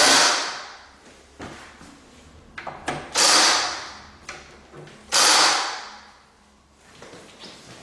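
Cordless drill-driver driving the screws that fix the telescope's secondary cage to its truss poles, run in three short bursts that each fade out, the first at the start, then about three and about five seconds in. Small clicks and knocks of the screws and metal parts come between the bursts.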